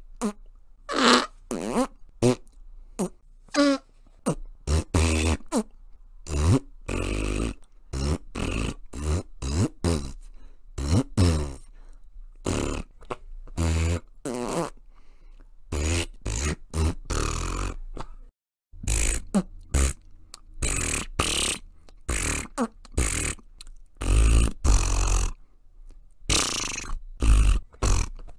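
A long string of short fart-like sounds, one after another, used as the words of an invented fart language; some slide up or down in pitch. There is a brief pause about two-thirds of the way through.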